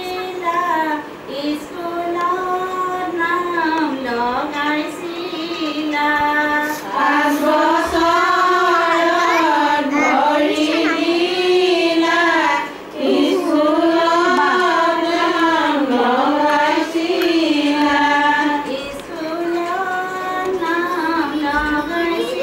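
Women's voices singing a slow, unaccompanied folk melody, with long held notes that dip and rise in pitch.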